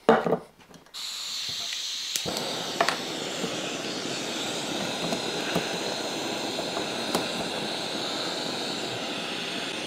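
Jetboil gas canister stove's burner catching about a second in, then burning with a steady hiss, with a few light clicks over it.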